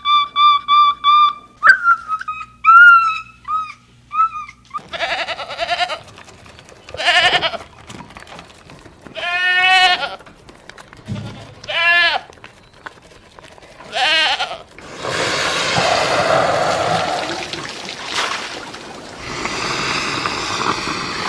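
Goats bleating: a run of separate wavering bleats, then two long, hoarse bleats near the end. These are preceded by a few seconds of high, thin, steady-pitched animal calls.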